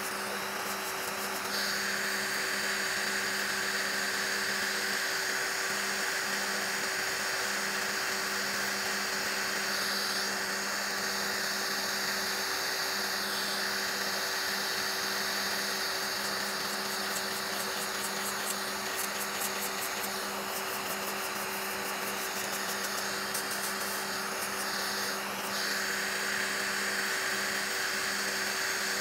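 Electric nail drill whirring steadily as its bit files gel off a fingernail. Its tone shifts a few times as the bit presses on the nail and eases off.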